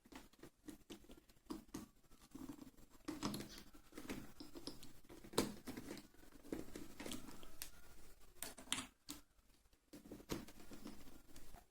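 Faint handling noises: scattered small clicks and short rustles as the mic, its cable and the helmet mount are handled and fitted.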